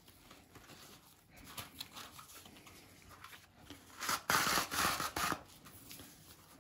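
Nylon battle-belt webbing rubbing and shifting in the hands, then about four seconds in a loud rasping rip of hook-and-loop fastener being pulled apart that lasts just over a second.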